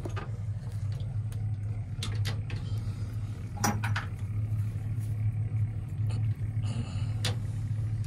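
A steady low mechanical hum, like a running engine, under a few short sharp metallic clinks of hand tools.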